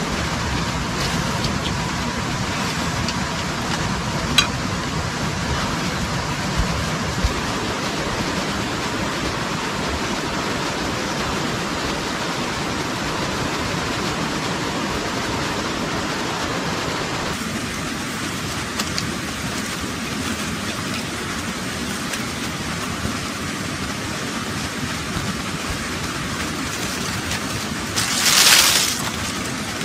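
A steady, rushing hiss like rain or running water, whose low end drops away about two-thirds through. Near the end comes a brief, louder rush of noise lasting about a second.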